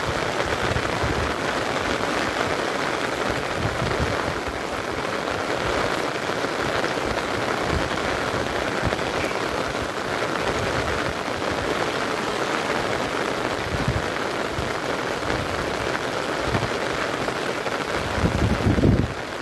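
Steady heavy rain falling on the pond water and wet grass. Low rumbles come and go underneath, loudest near the end.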